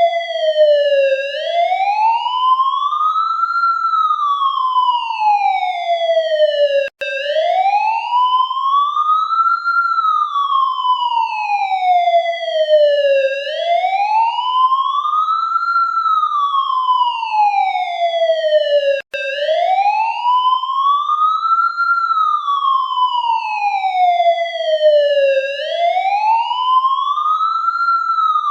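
Police siren in a slow wail, its pitch rising and falling about once every six seconds. It cuts out for an instant twice.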